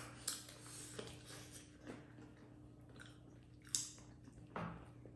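A person chewing food close to the microphone, with a few short wet smacks and clicks, the sharpest about three-quarters of the way through. A faint steady hum lies underneath.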